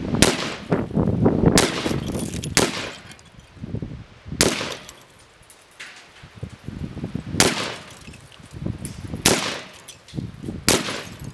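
AR-15 rifle firing about seven single shots, spaced one to three seconds apart, into a porcelain toilet.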